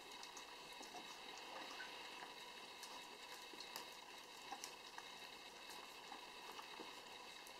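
Schnauzer dam and puppies eating soft food from a tray: faint, irregular wet smacking and lapping clicks over a steady low hiss.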